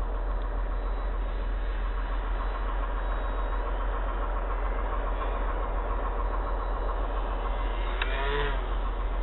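Small electric RC plane motor and 6x4 propeller running in flight, heard as a steady drone under a constant low rumble. A short wavering pitched sound comes about eight seconds in.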